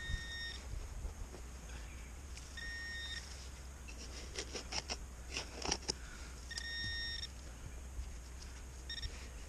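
Metal detector sounding short steady target beeps, one tone with its overtones, repeating about every three to four seconds, four in all. A cluster of sharp clicks or scrapes falls in the middle.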